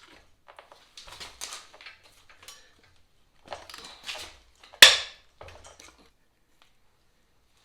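Wrench and steel suspension-linkage parts clinking and scraping as the linkage bolts are worked loose, in irregular short spells, with one sharp metallic clank about five seconds in.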